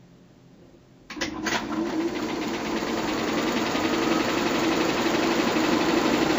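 Bell & Howell 122 LR 8mm film projector starting up about a second in with a few sharp clicks, then running steadily: the mechanical chatter of the film transport over a steady motor hum.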